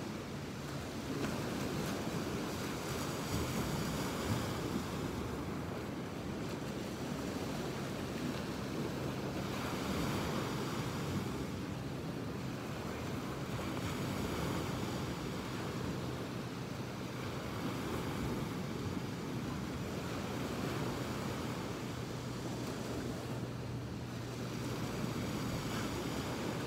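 Ocean surf washing onto the beach in a steady rush, with wind buffeting the microphone and a faint steady low hum underneath.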